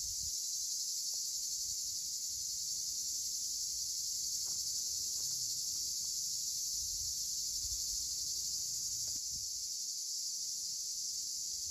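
A steady, high-pitched chorus of insects chirring across the rice paddies, with a faint low rumble coming and going underneath.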